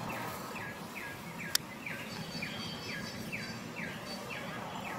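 A bird calling a short falling note over and over, about two a second, over steady outdoor background noise. One sharp click about one and a half seconds in.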